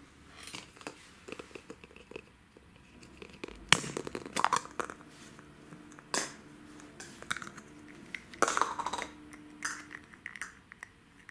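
Hard plastic surprise egg being handled and snapped open, with a sharp click about four seconds in, then scattered clicks and a short crinkling of the clear plastic shell around the toy figure near the end.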